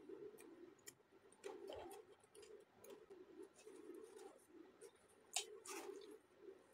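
Faint close-up eating sounds: chewing with small mouth clicks, and the crackle of a bathua-leaf flatbread being torn by hand. The sharpest crackles come twice, about five and a half seconds in.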